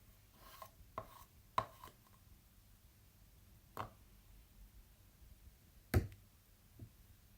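Knife chopping salad ingredients on a cutting board: a handful of separate, irregularly spaced chops, the loudest about six seconds in.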